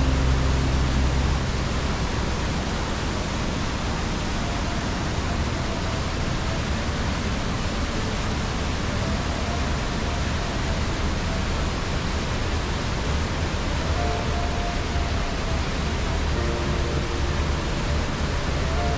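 Steady rush of water from the Trümmelbach Falls, glacier meltwater pouring through the gorge, an even noise at a constant level. Faint held tones come and go in the background.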